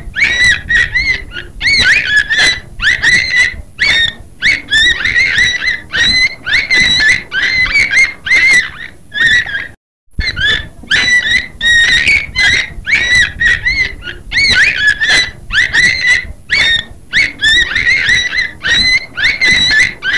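Beluga whale vocalizing: a rapid, unbroken run of short chirps and squeals, several a second, many sliding up or down in pitch, with one brief silent break about halfway through.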